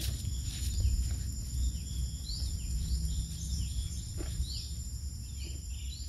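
Outdoor woodland ambience: birds give repeated short chirping calls over a steady high-pitched insect drone, with a low steady rumble underneath. A few faint knocks come through about four seconds in.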